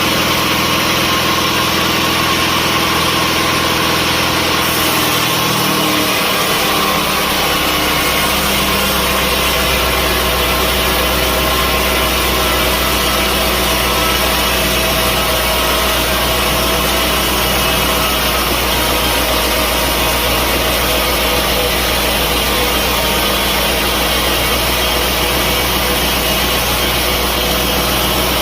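Sawmill machinery running steadily, a loud motor hum mixed with sawing noise. The low drone shifts about five to six seconds in.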